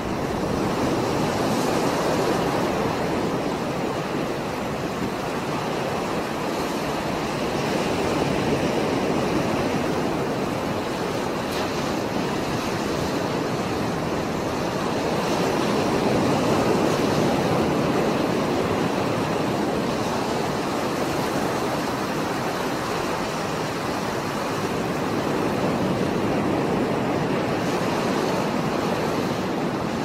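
Rough sea surf breaking on a rocky shore: a continuous rushing wash that swells louder and eases again every eight seconds or so as the waves come in.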